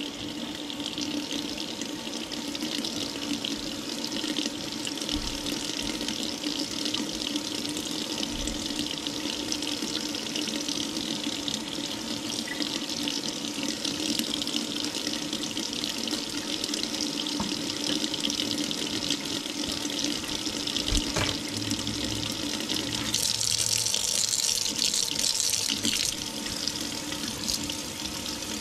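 Kitchen faucet running a steady stream into a stainless steel sink and down the drain, splashing louder for a few seconds near the end. The water is being run to test whether the kitchen drain line, just snaked, now flows.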